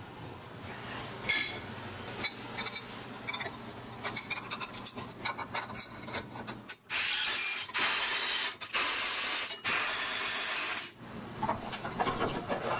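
Small metal clicks and taps as a drilled steel plate is set onto the steel block of a forklift fork, then four rasping bursts of about a second each as the four bolts that hold it are run in.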